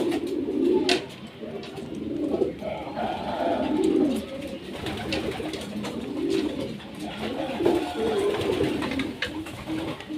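Domestic pigeons cooing over and over in low, repeated calls, with a few faint clicks.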